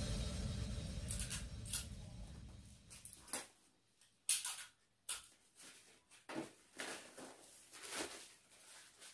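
Background music fading out over the first few seconds, then intermittent short rustles and crinkles of pink wrapping paper being folded and pressed around a box.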